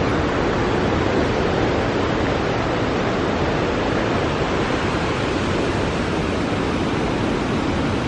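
Steady rush of water from a river falling in a series of cascading waterfalls, an even noise with no break.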